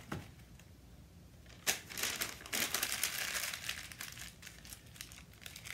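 Sheets of paper crinkling and rustling as potatoes are wrapped in them one at a time, starting after a quiet second and a half and lasting about three seconds.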